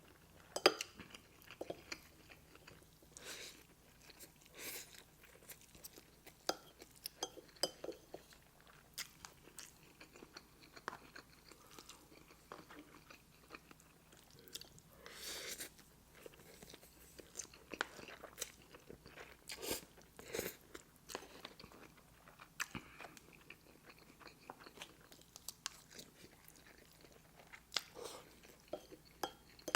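Close-miked chewing and mouth smacking while eating Cajun shrimp jambalaya pasta: a long run of irregular soft clicks and smacks.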